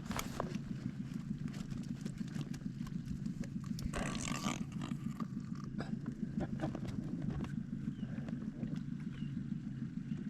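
Small boat outboard motor running at a low idle, a steady low rapid pulsing hum, with scattered clicks of rod and reel handling and a brief hissing rush about four seconds in.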